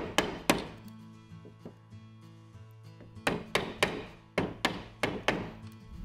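Small hammer striking the handle of a wood chisel, cutting a notch into a wooden boat stringer: two sharp blows at the start, then a quick run of about seven blows from about three seconds in. Background music plays underneath.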